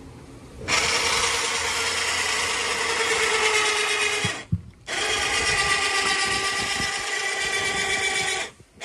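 Harbor Freight DC electric winch motor running with a steady whine as it hoists an inflatable dinghy on a dock lift. It starts about a second in, stops briefly about halfway, then runs again until just before the end.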